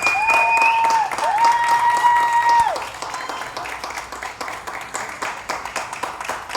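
A group of people applauding with steady, rapid clapping. Over it, a few long, held high-pitched calls sound during the first three seconds, then the clapping carries on alone and somewhat quieter.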